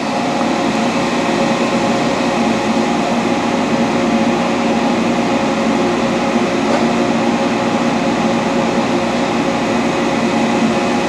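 Dainichi Model H lathe running with its spindle turning and the power feed engaged, a steady mechanical hum with several steady tones and no grinding from the gears: a smooth-running machine in good condition.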